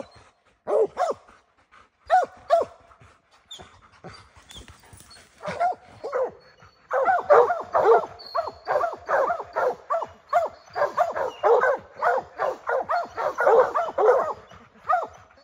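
Plott hounds barking treed at a black bear up a tree: a few spaced-out barks at first, then fast, steady barking from about seven seconds in.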